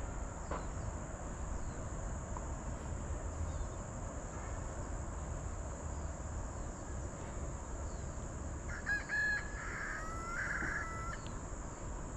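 A rooster crows once, about nine seconds in: a single call of about two and a half seconds that rises and then holds. A steady high insect buzz runs underneath.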